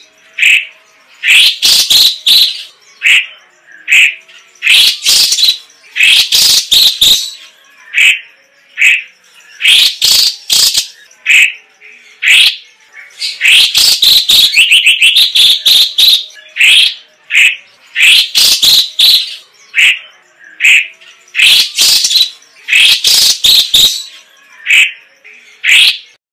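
Orange-bellied leafbird (cucak cungkok) singing loudly in short, sharp bursts repeated every second or so, with a longer rapid rolling trill about halfway through.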